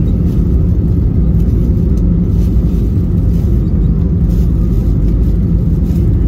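Loud, steady low rumble inside the cabin of an Airbus A320-214 rolling out on the runway after touchdown, ground spoilers raised: engine and wheel noise of the decelerating airliner.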